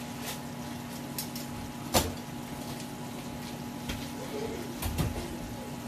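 A sharp knock about two seconds in and two lighter knocks near the end, over a steady hum and faint scattered ticking.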